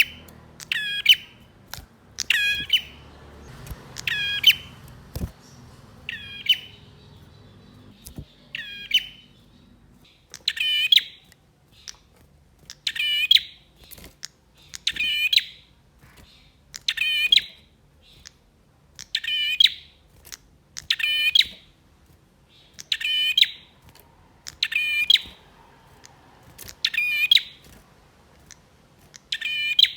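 Male prinia (prenjak) calling hard: a string of loud, sharp, metallic chirps repeated about once every one to two seconds, each one sweeping down in pitch.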